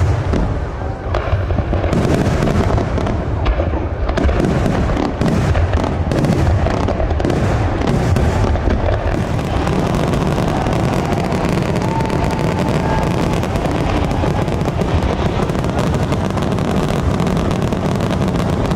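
Aerial fireworks shells bursting in rapid succession, a dense barrage of booms and crackle. After about nine seconds the bursts run together into a continuous rumble.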